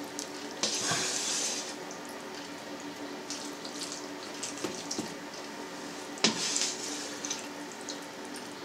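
Plastic slotted skimmer scooping soft, set cheese curd out of its whey in a steel pan and tipping it into a cheesecloth-lined colander. Whey slops and splashes twice, about a second in and again about six seconds in, with a few light clicks in between.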